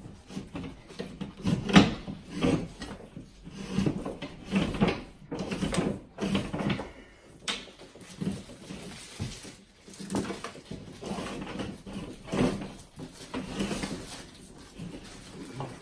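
HDMI and Romex cables being pulled up through the inside of a drywall wall: irregular scraping, rubbing and knocking of cable against the wall cavity, in uneven pulls with short pauses between them.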